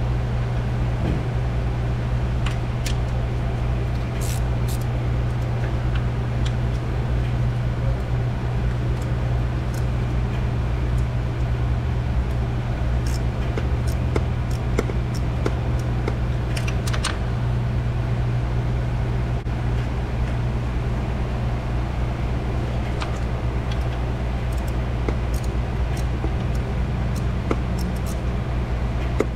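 Steady low mechanical hum of shop machinery, with scattered light metallic clicks and clinks as a wrench and small ratchet work a bolt in the engine bay.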